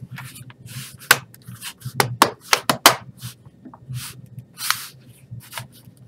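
The plastic tabs of a Lenovo ThinkPad E450's bottom cover snapping into place as hands press along the panel: a run of sharp clicks, several in quick succession about two to three seconds in, with hands rubbing on the plastic between them.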